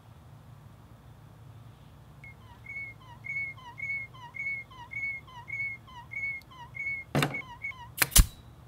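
Cartoon sound effects for an animated walking clamp: a run of evenly spaced squeaks, about two a second, each a short arching high tone. Near the end come a couple of sharp clacks.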